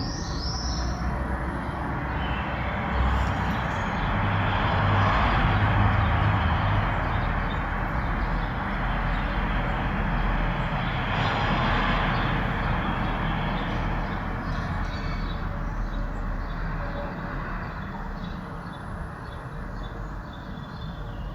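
Passing traffic: a rushing vehicle noise that swells twice, loudest about five and twelve seconds in, then slowly dies away.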